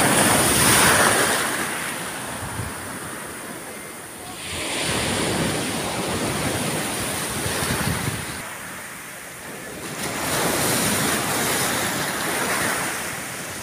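Sea waves breaking and washing up a pebble beach, swelling and easing in three surges, the loudest about a second in.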